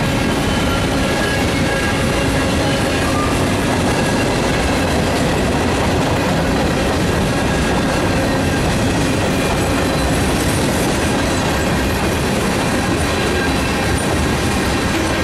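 Freight cars of a long mixed freight train rolling past at speed. The steel wheels on the rail make a loud, steady rumble with faint high whining tones mixed in.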